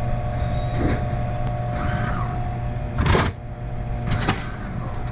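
Steady low hum of a car with its engine running, heard from inside, broken by a few short knocks; the loudest knock comes about three seconds in.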